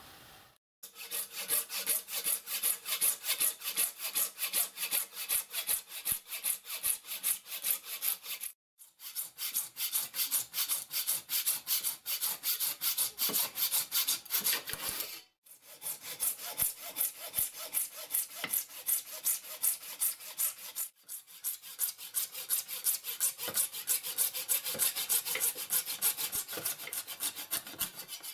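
Hacksaw cutting a Perspex acrylic sheet clamped in a bench vice, with steady back-and-forth rasping strokes. The sawing runs in three long spells, stopping briefly twice.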